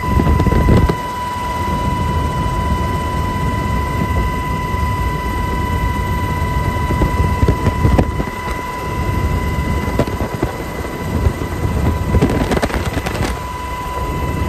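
UH-60 Black Hawk helicopter in flight, heard from inside the cabin: steady, loud rotor and engine noise with a steady high whine. There are louder rushes about a second in and again near the end.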